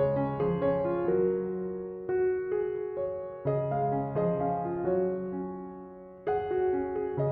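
Background music: a piano-like keyboard melody of struck notes that fade after each strike.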